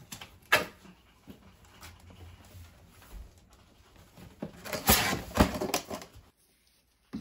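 Cardboard box being opened by hand: a sharp click about half a second in, faint handling and tape being peeled, then a louder stretch of cardboard flaps rustling and knocking about five seconds in. The sound cuts off abruptly near the end.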